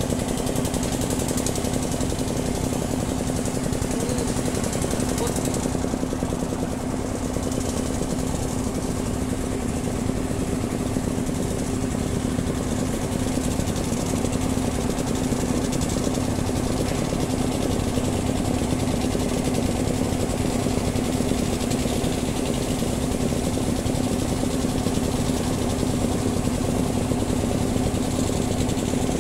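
An engine running steadily at one constant speed, a fast even chatter over a steady hum that does not change.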